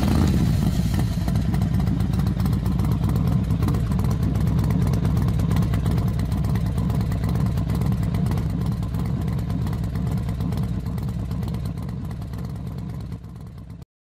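Racing motorcycle engines running: a loud, deep, continuous engine sound that starts abruptly, slowly fades over the last few seconds and cuts off near the end.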